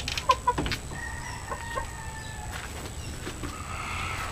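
Gamefowl clucking in their pens, with a rooster's long drawn-out crow starting about a second in. A few sharp knocks come near the start.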